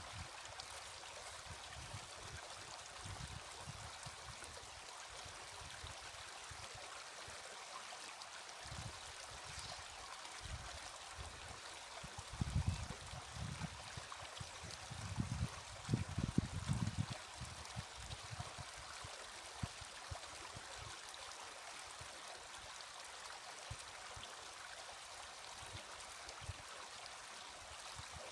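Steady rush of flowing water, like a stream, with a few low bumps and rumbles about halfway through.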